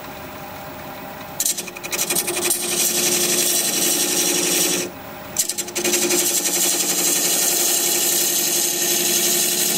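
A wood lathe spinning a very hard, dense Red Mallee burl, with a recess tool cutting a dovetail into it: a loud, rough scraping cut over the lathe's steady hum. The cut starts about a second and a half in and breaks off briefly about five seconds in as the tool leaves the wood, then continues.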